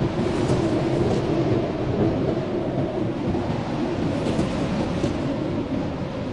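Blizzard wind: a steady, low rushing noise with no pitch, with a few faint high ticks scattered through it.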